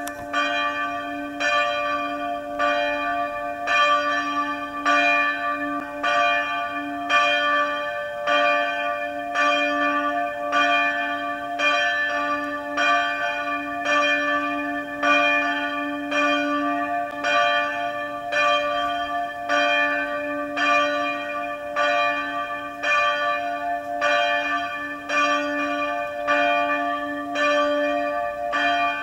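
Church bells ringing, struck over and over at a quick, even pace, about one and a half strikes a second. Several tones ring on together between the strikes.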